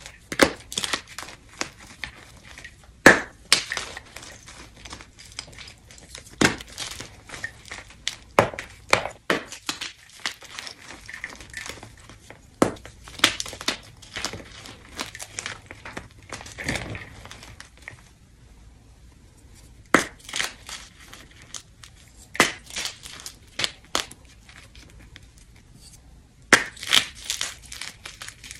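Wet blocks of gym chalk crushed in the hand, crunching and crumbling, with chunks and powder falling back into a plastic bowl of broken chalk. The crunches come irregularly, with a pause of about two seconds a little past the middle and a quick run of them near the end.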